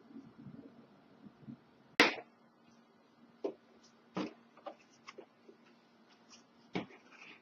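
Irregular handling knocks and clicks, as a boxed keyboard and its packaging are moved about, with soft rustling at first and one sharp knock about two seconds in.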